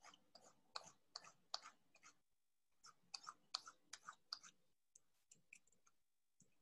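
Faint, irregular clicking of a computer mouse, small clicks in two short clusters, as brush dabs are laid down in a painting program.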